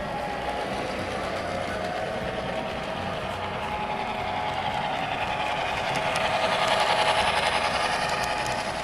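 HO-scale model diesel locomotive running along the track with a steady mechanical hum, growing louder about six seconds in and easing off near the end.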